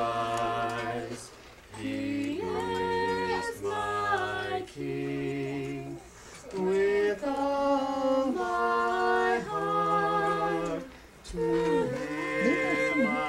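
A man and a woman singing a Christmas carol together from a carol sheet, in held notes and phrases with short pauses between.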